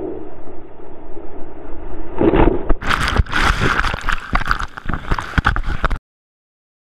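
Surf water rushing and splashing around a GoPro in its housing inside a breaking wave. It is muffled at first, turns into loud, harsher rushing and splashing from about three seconds in, and cuts off suddenly near the end.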